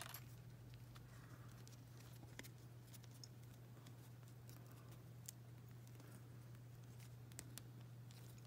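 Near silence: a steady low hum, with a few faint, scattered clicks as a small plastic doll outfit is handled and fitted onto a toy doll.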